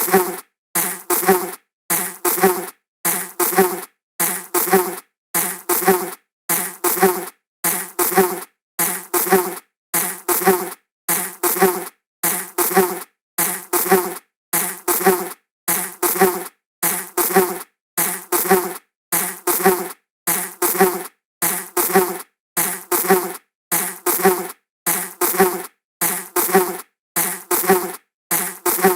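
Flying insect buzzing in short bursts that come in pairs, a pair a little more than once a second, repeating evenly as a looped effect with silent gaps between.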